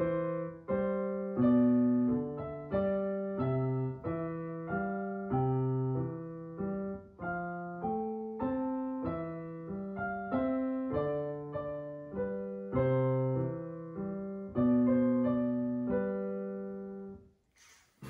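Kawai digital piano played slowly in chords, a new chord struck about every 0.7 seconds and left to ring. It is a beginner's halting performance, and the playing breaks off shortly before the end as the player gives up.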